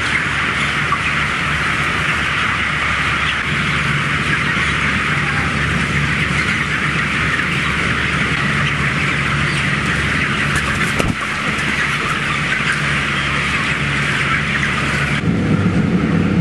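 Steady din inside a broiler chicken shed: the massed calls of a large flock of broiler chickens over the hum of ventilation fans. Near the end the high din drops away and a lower hum comes forward.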